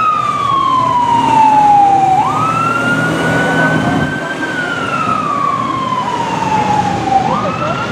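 Fire engine's siren wailing: the pitch jumps up quickly, holds briefly, then falls slowly for about three seconds, and the cycle repeats twice.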